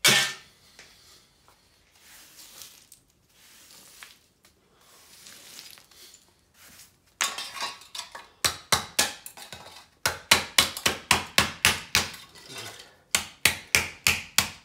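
Hammer blows on weighted sterling silver hollowware, breaking it apart to free the cement filling. A single strike, a few seconds of quieter scraping and shifting of metal, then a rapid string of ringing metallic hits, about three a second, with a short pause near the end.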